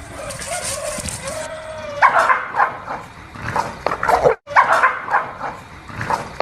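A dog barking repeatedly in short, sharp barks, alarm barking at what it takes for a threat, after a drawn-out whine at the start.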